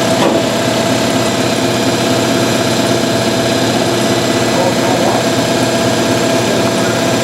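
A motor running steadily, a loud, even machine drone with a constant hum.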